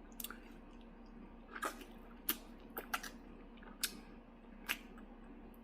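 A person chewing and biting on cooked chicken feet close to the microphone: a handful of short, sharp wet clicks and smacks, spaced irregularly.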